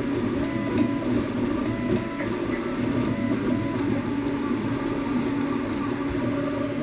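Ultimaker-style 3D printer clone running, its stepper motors whining in short tones that jump between pitches as the moves change, over a steady whir. The hopping tones settle to steadier ones about four seconds in.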